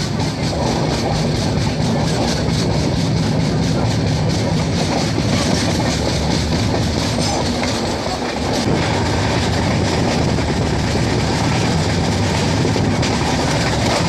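Passenger train running at speed, heard from an open coach window: a steady rumble and rattle of the coaches' wheels on the rails.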